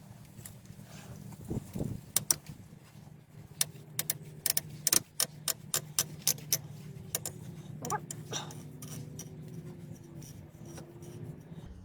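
Flathead screwdriver working the plastic radiator drain plug loose: a run of sharp clicks and taps, thickest between about two and eight seconds in, over a steady low hum.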